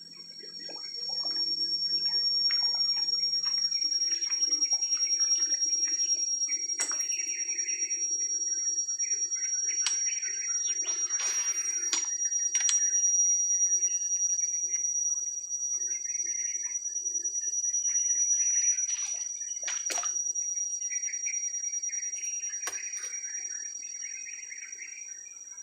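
Shallow floodwater sloshing and splashing in uneven patches as someone wades through it, with a few sharp clicks, over a steady high-pitched whine.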